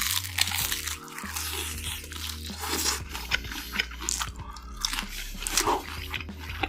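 Crunchy bites into a chicken drumstick and chewing, close to the microphone, with a run of sharp crackles. Background music plays under it.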